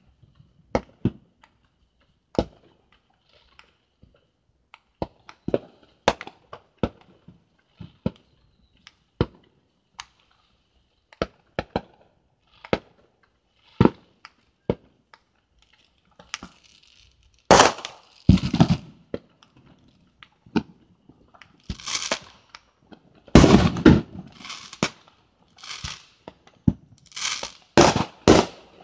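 Fireworks going off: scattered single sharp bangs at first, then from about halfway a quicker run of louder, longer bursts.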